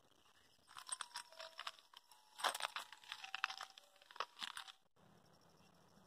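Close rustling and crunching in quick, irregular bursts for about four seconds, with a few brief faint tones mixed in. It cuts off abruptly about five seconds in.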